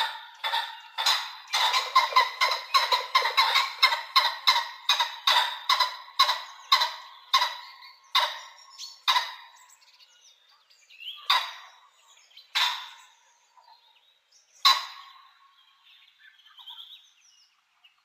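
Pheasant calling: a fast run of short, sharp calls, several a second, that slows down, then three single calls a second or two apart.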